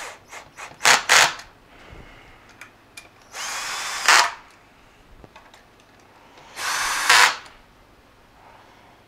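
Power drill/driver with a screwdriver bit running in three short bursts, driving screws into a Royal 884 vacuum's housing to tighten them down.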